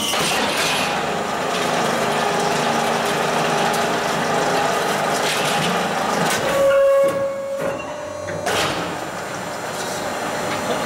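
Hydraulic concrete block-making machine running, a steady mechanical clatter and hum. About seven seconds in there is a brief louder whine, then a short lull before the running noise resumes.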